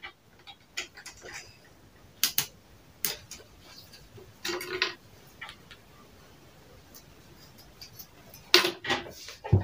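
Scattered light clicks and knocks of tools and fabric being handled on a tailoring table. There is a longer rustle about halfway through and a louder cluster of knocks near the end.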